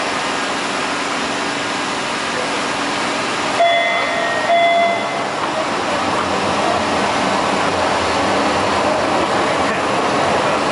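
MBTA Red Line subway train of Pullman-Standard No.1 and UTDC No.2 cars pulling out of the station: a steady rush and rumble of wheels on rail that grows a little as it gathers speed. Two short tones sound about four seconds in.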